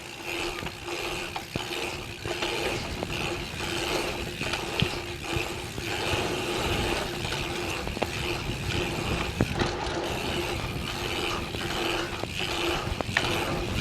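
Mountain bike rear freehub buzzing as the rider coasts down a trail, the buzz dropping out briefly several times when he pedals, over a low rumble of tyres and wind with scattered sharp knocks from the rough ground.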